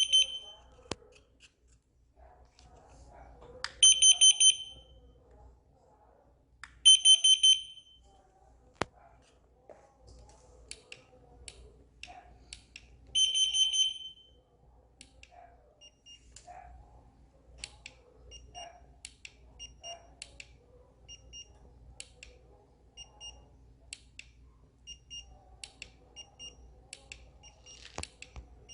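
High-pitched electronic alarm sounding in four loud bursts of rapid beeps, near the start, about four seconds in, about seven seconds in and at thirteen seconds. It then settles into short, fainter single beeps about a second apart, over faint scattered clicks.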